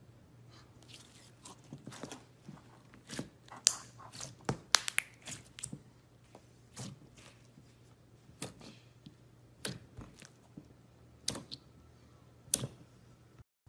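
Glossy metallic slime being stretched and then squeezed and poked with the fingers, giving irregular sharp, wet clicks and pops, thickest in the first few seconds and sparser later. A faint steady low hum runs underneath.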